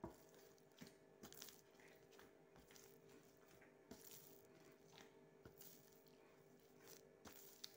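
Faint soft taps and squishes of bread dough being kneaded and turned by hand on a floured countertop, over a faint steady hum.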